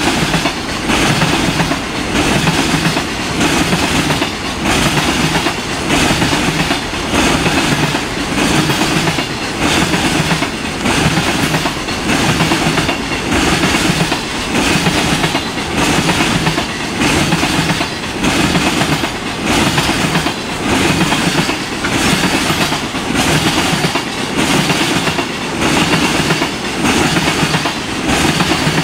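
Freight train container wagons rolling past close by, their wheels clattering over the rail joints in an even, repeating clickety-clack rhythm.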